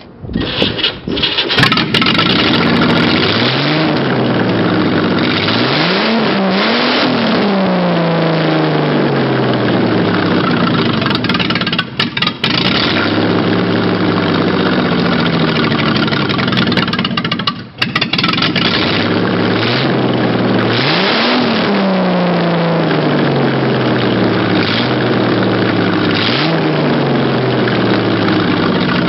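A big engine starting from cold and catching about a second in. It runs on and is revved up and back down twice, its pitch rising and then falling.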